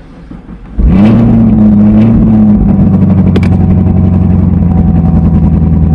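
A motor vehicle engine starts up loudly about a second in, rises briefly in pitch, then settles into a steady run.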